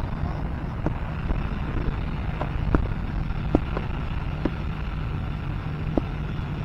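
Steady low rumble of wind buffeting the microphone, with a few faint short clicks scattered through.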